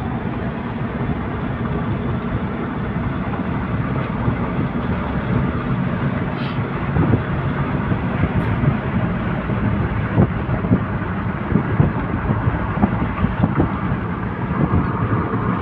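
Car engine and tyre noise heard from inside the cabin while driving at a steady speed on a concrete road, with a few light knocks now and then.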